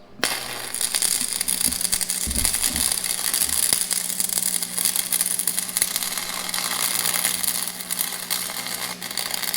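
A metalworking tool working steel: a loud, harsh, crackling hiss with a steady low hum under it. It starts abruptly just after the start and stops shortly before the end.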